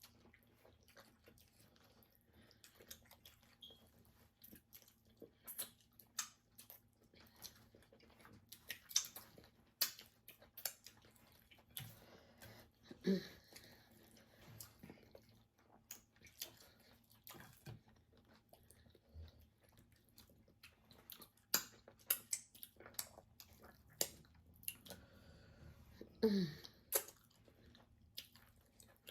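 Close-up eating sounds: chewing with many short wet mouth clicks and smacks, the sounds of eating fish and soup with starch. Twice, about 13 and 26 seconds in, comes a brief pitched sound from the mouth.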